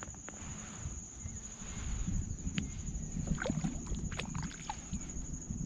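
Knocks, rubs and small clicks of handling in a plastic sit-on kayak as a freshly caught catfish is taken off the hook and put away, the clicks coming mostly past the middle. A steady high insect trill runs behind.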